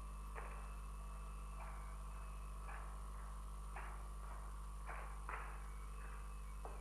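Footsteps of a person walking on a paved stone path, short scuffing steps about once a second, over a steady low electrical hum.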